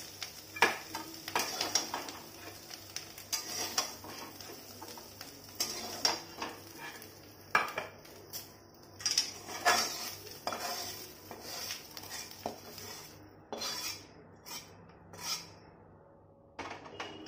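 Long metal spatula scraping and clinking against a metal kadhai as fried mushroom pieces are scooped into a steel bowl, over a faint hiss of frying oil. The hiss dies away near the end.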